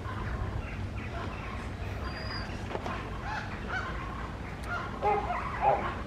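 Short animal calls, several in a row, the loudest about five seconds in, over a low steady rumble.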